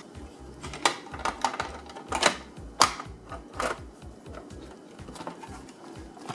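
Top cover of a Dell OptiPlex 3050 Micro PC being slid onto the chassis and pressed down: a run of sharp clicks and knocks as it seats, loudest about three seconds in, then lighter clicks and handling.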